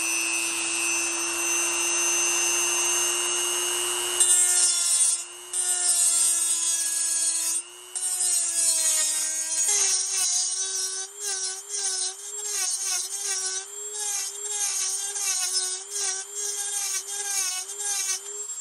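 Dremel rotary tool with a carbide bit, spinning with a steady high whine, then grinding metal out of an exhaust header flange opening to match the gasket. From about four seconds in, the pitch sags and wavers as the bit bites. In the second half it cuts in short repeated passes, roughly two a second.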